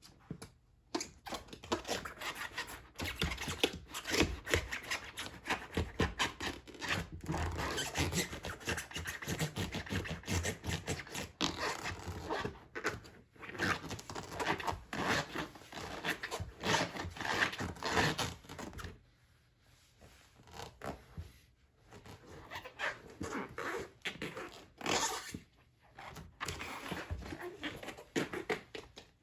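Shibata rubber waders rubbing and squeaking against themselves as the wearer moves, a dense run of scrapes and soft thunks that eases off about two-thirds of the way through and then picks up again.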